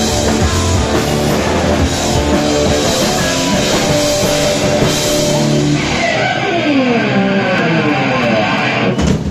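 Live rock band of distorted electric guitars, bass guitar and drum kit playing loud. About six seconds in, the drums and bass drop out and the guitars ring on with notes sliding down in pitch. Sharp band hits come back near the end.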